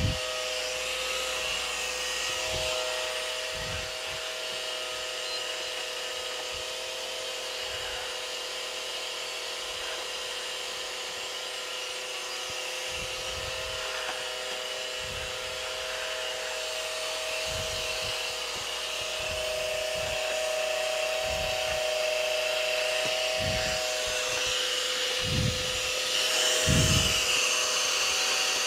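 Unbranded budget canister vacuum cleaner running, its motor giving a steady whine over an even airflow hiss, a little louder in the second half. Scattered low bumps come from the hose and wand being handled.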